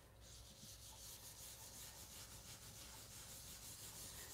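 Faint rubbing of a round ink blending brush swirling across cardstock, building up colour with a light hand.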